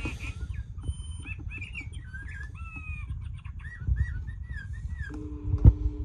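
Recorded birdsong from a quartz singing bird clock sounding the 7 o'clock hour, the mourning dove's hour: a run of short chirping whistles, then a low, steady cooing tone begins near the end. A sharp knock just before the end is the loudest sound.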